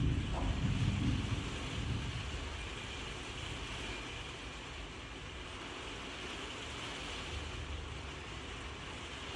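Steady rainfall, an even hiss, with the tail of a thunder rumble fading out over the first two seconds.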